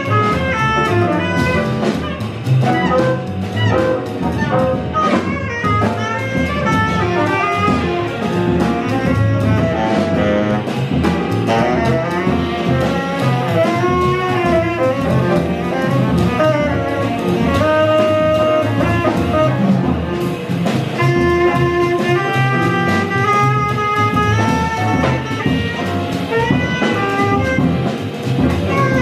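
Jazz quartet of saxophone, piano, double bass and drum kit playing live. The saxophone carries a running melodic line over a walking bass, and the drummer keeps time on the cymbals with sticks.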